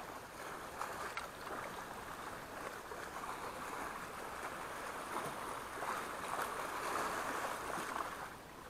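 Small sea waves washing and splashing against shoreline rocks, a steady wash that swells a little louder about six seconds in and drops away near the end.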